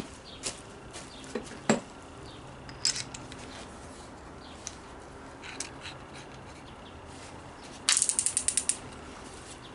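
Keyless chuck of a cordless drill ratcheting shut on a Forstner bit: a quick run of about ten loud clicks in under a second near the end. Before it come a few scattered light clicks and knocks from handling the drill and bit.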